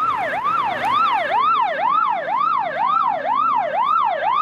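Fire engine's electronic siren in fast yelp mode, its pitch rising and falling about three times a second.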